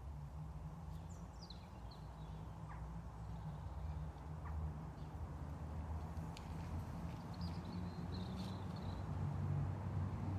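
Outdoor ambience: a steady low rumble that grows slowly louder, with a few short bird chirps, once early and again a few seconds later.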